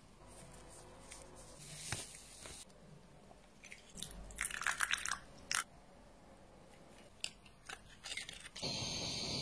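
Sauce and seasonings poured onto grated paste in a ceramic bowl, then a spoon stirring and scraping the mixture against the bowl. A cluster of crisp scrapes comes about four to five seconds in, and a steadier rasping near the end.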